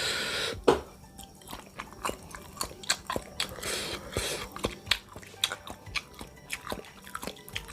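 Close-up eating sounds of a person chewing and biting into bakso meatballs: many short wet clicks and smacks, with a longer hissing sound at the start and another about four seconds in.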